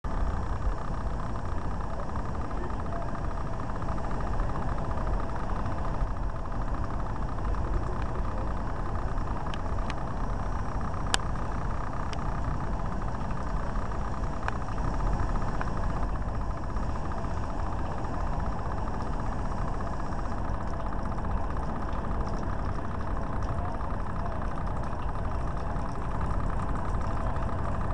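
An engine idling steadily, with a few faint clicks over it.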